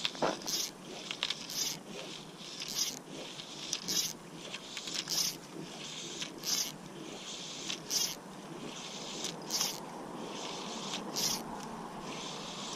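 Fly line being stripped in by hand through the rod guides: a short zip about every second and a half, the strips slowing as they go on.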